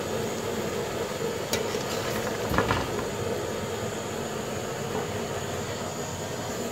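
Steady hum and hiss of kitchen background noise, with a click about a second and a half in and a louder knock of a utensil against the steel pot a second later as the boiled onions, tomatoes and garlic are scooped out.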